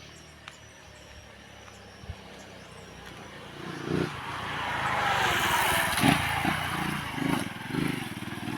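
A motor vehicle going by close at hand, its engine and road noise growing louder from about three and a half seconds in and staying loud to the end.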